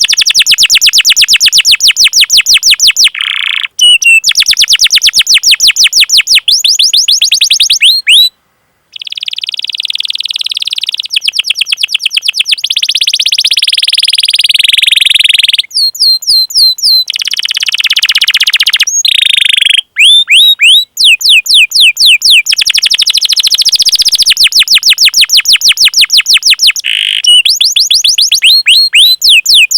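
Canary singing long, fast rolling trills: rapid repeated 'cuit cuit' chirps, about a dozen a second, in long phrases broken by buzzy rolls and brief pauses.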